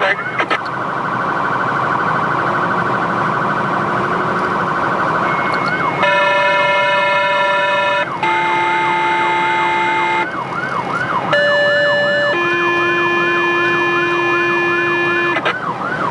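Emergency vehicle's siren running while responding: a fast warble at first, switching to a yelp that sweeps up and down about twice a second from about six seconds in. Over the yelp come four steady horn blasts, the last about three seconds long.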